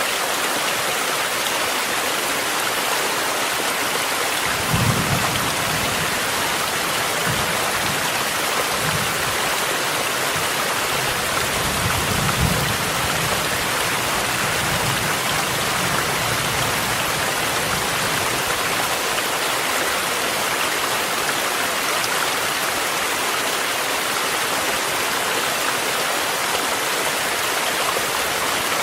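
A mountain stream running and steady rain falling in one continuous rush of water. Low thunder rumbles twice, about five seconds in and again around twelve seconds.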